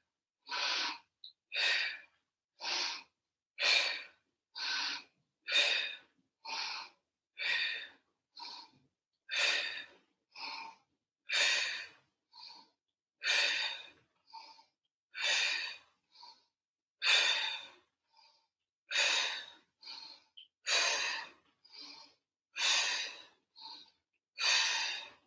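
A woman breathing hard and rhythmically during a Pilates criss-cross abdominal exercise: short hissing breaths, about one a second, paced to each twist.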